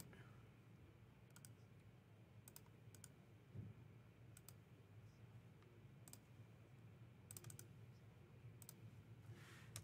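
About seven faint, isolated clicks of a computer mouse and keyboard, spaced a second or more apart, over near silence.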